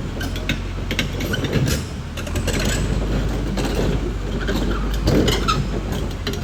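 Caterpillar D6R XL bulldozer's diesel engine running steadily while its steel tracks clank and knock irregularly as it moves.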